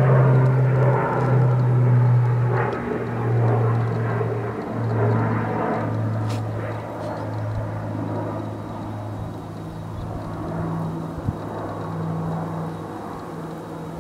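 Twin-engine propeller firefighting aircraft flying over, its engines droning loud at first, with the pitch dropping in steps as it passes and the sound fading. A slightly higher engine drone builds again in the second half, with a single sharp click near the end.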